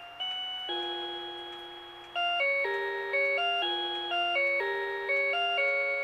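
Rhythm Watch 'Melody Box Eight' melody alarm clock playing one of its built-in classical tunes through its small speaker, in a chime-like tone rather than a plain electronic beep. Each note is struck and then fades; the tune starts with two slow held notes and then moves into a quicker run of chords about two seconds in.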